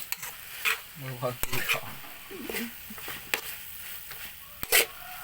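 Food sizzling in a hot pan as it is stir-fried, with a cooking utensil knocking and scraping against the pan several times.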